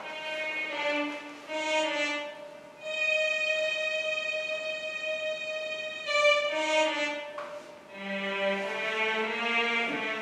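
Violin playing a slow melody: a few short notes, then one long held note for about three seconds, then more notes, some sounding two at once.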